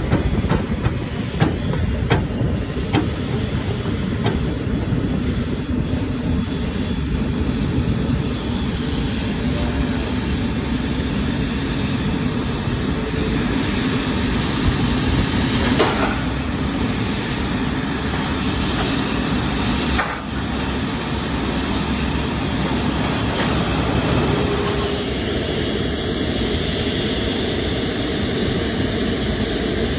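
Airbus A380 taxiing, its four Rolls-Royce Trent 900 turbofans running at taxi power as a steady loud rumble. A baggage tug towing empty dolly carts adds scattered clanks and rattles, most in the first few seconds and twice more later.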